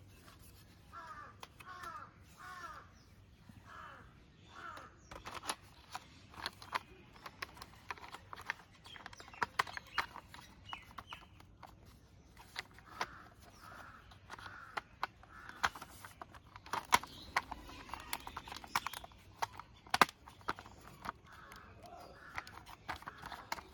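Hard plastic toy car body and chassis being handled and pressed together: a string of irregular sharp plastic clicks and snaps with light rubbing. Runs of short harsh calls sound in the background near the start and again in the middle.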